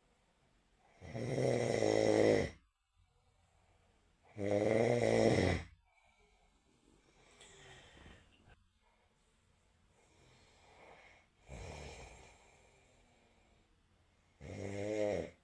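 A person snoring in a slow, uneven series: three loud snores of about a second and a half each, near the start, about a third of the way in and near the end, with fainter snores between them.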